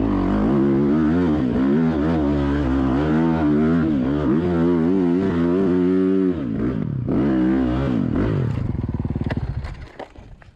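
Yamaha dirt bike engine revving hard under throttle on a steep loose hill climb, its pitch rising and falling over and over as the rear wheel digs for grip. Near the end the revs fall away and the engine dies as the bike goes over, with a few clattering knocks.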